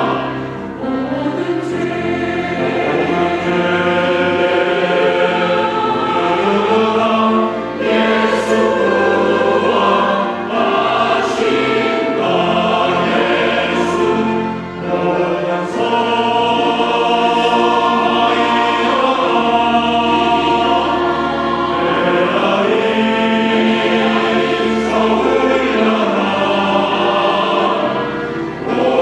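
Church choir singing a sacred anthem in several parts, the full sound held with only brief dips between phrases.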